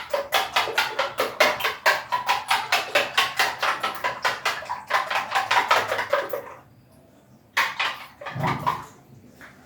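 Eggs being beaten in a bowl, the utensil clicking against the bowl in a fast, even rhythm of about five to six strokes a second. The beating stops about two-thirds of the way in, and a few knocks follow.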